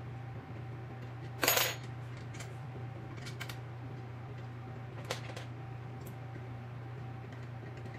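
Baby swing parts and small metal assembly hardware clinking as they are handled and fitted: one louder clatter about a second and a half in, then a few light clicks. A steady low hum runs underneath.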